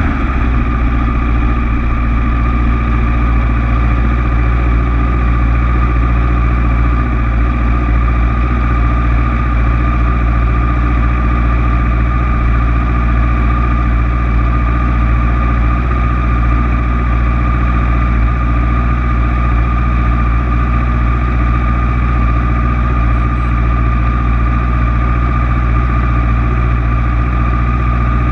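Motorcycle engine idling steadily, heard close up from a camera mounted on the bike itself.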